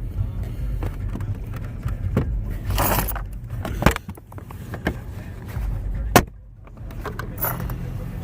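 Tool and trim-handling noise inside a car's cabin: scattered clicks and knocks, a short scraping rattle about three seconds in and two sharp clicks later, over a low steady rumble.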